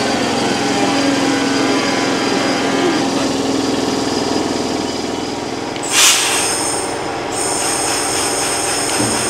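Class 323 electric multiple unit moving through the station, its traction equipment whining in steady tones over wheel and rail noise. A short, loud hiss-like burst comes about six seconds in, and steady high-pitched whines follow it.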